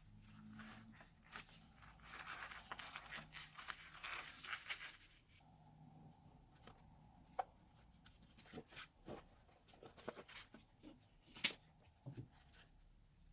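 Hands working slime: soft, sticky crackling and tearing for a few seconds, then scattered small pops and clicks, with one sharp click near the end.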